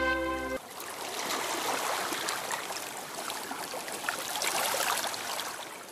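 Shallow water lapping and trickling over pebbles: a steady wash with fine crackles that fades away near the end. A held chord of background music cuts off about half a second in.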